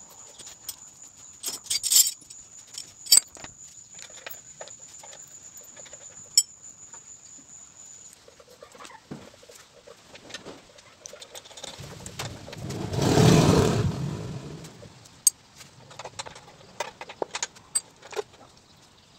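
Light metal clicks and clinks of hand tools and a steel bearing and pulley being handled while a grass chopper's knife-rotor shaft is fitted. A thin high whine stops before halfway through. About two-thirds of the way in, a louder rushing noise swells and fades over two seconds.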